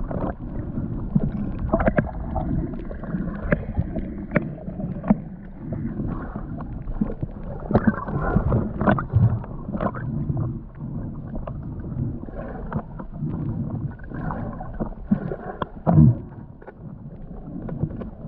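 Muffled water sloshing and gurgling around a submerged or half-submerged camera as a snorkel diver moves in the river, with scattered knocks and clicks throughout.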